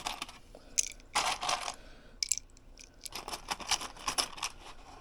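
Rummaging through a container of small parts: irregular scraping, rustling and light clicks as pieces are pushed aside and handled.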